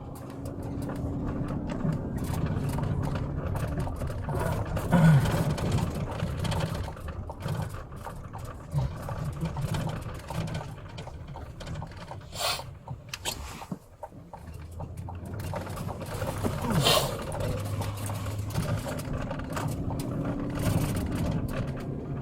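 Steady low rumble of a police car's engine and road noise heard from inside the cabin, with a few short clicks or rustles.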